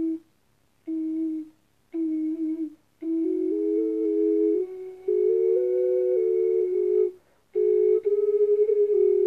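Polyphonic (double-chambered) ocarina being played: first three short single notes on one chamber, then from about three seconds in both chambers together, a simple melody over a steady drone note that steps up to a new pitch once partway through.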